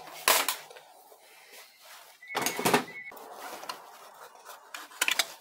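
Steel tools clicking and scraping against a transmission circlip as it is prised from its groove in the center support, with a short metallic clatter and ring about two and a half seconds in and more sharp clicks near the end.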